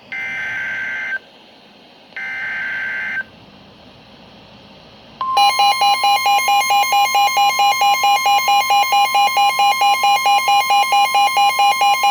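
Emergency Alert System SAME header on NOAA Weather Radio: two short, harsh electronic data bursts about a second apart, then a pause. About five seconds in, the steady weather-radio warning alarm tone starts, with rapid electronic alarm beeps, about four a second, over it, signalling a warning about to be read.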